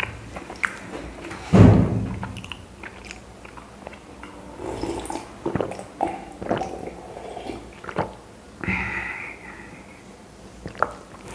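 A man chewing and eating chapati with curry: irregular wet mouth clicks and smacks, with one louder low sound about a second and a half in.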